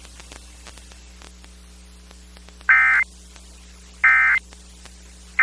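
Emergency Alert System end-of-message signal: short, identical bursts of SAME data tones about a second apart, the first about halfway through and the third just starting at the end. Before them, a low steady hum with light static crackle on the radio feed.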